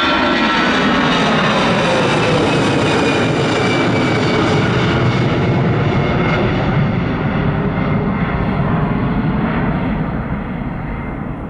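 Airbus A320 jet engines passing close by, their whine falling in pitch as the airliner goes past, then the engine noise fading away as it recedes.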